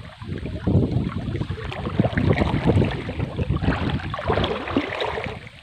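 River water sloshing and splashing as people wade waist-deep through it, irregular and fairly loud, falling away near the end.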